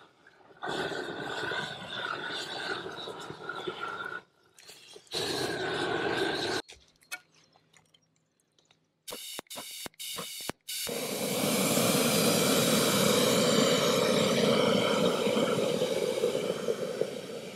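Long-wand propane roofing torch burning with a steady roar as it heats torch-down roofing membrane into a scupper opening. The roar cuts off and comes back several times in the first ten seconds, with a few seconds of near silence, then runs steadily through the second half.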